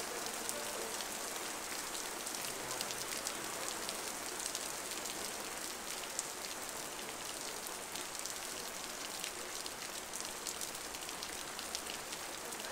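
Heavy rain pouring steadily onto a street: a constant hiss with a dense crackle of individual drops splashing.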